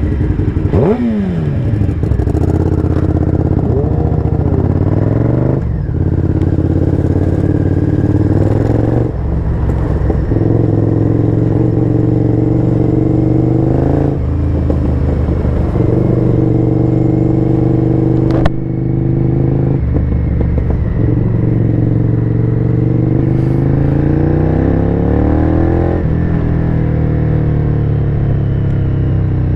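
Honda VTR V-twin motorcycle engine under way, the revs rising and then dropping several times as it is ridden up through the gears and back off the throttle. One sharp click sounds about 18 seconds in.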